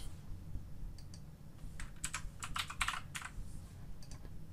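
Computer keyboard keystrokes: a handful of scattered clicks, most of them in a quick run in the middle, over a low steady hum.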